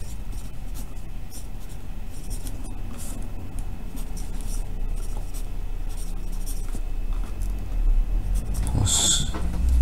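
Pencil scratching on notepad paper in short strokes as equations are written, over a steady low hum. A louder hiss comes near the end.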